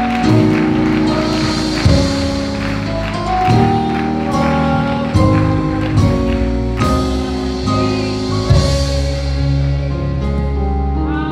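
Slow instrumental worship music: held chords over a steady bass line, changing every second or two, with a soft percussive hit roughly every second and a half.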